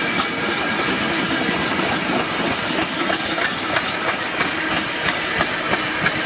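Empty container flat wagons of a freight train rolling past, a steady rolling noise with the wheels clicking over rail joints about every half second.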